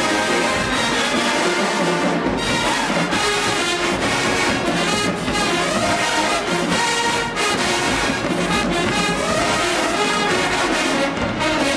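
College marching band's brass section playing a song, with the trumpets carrying most of it.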